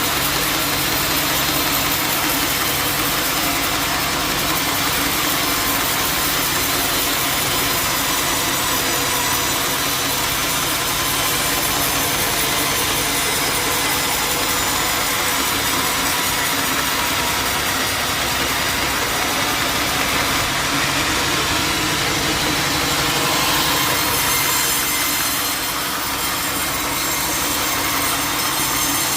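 Sawmill running: the saw cuts steadily through wood over the even drone of the mill's engine.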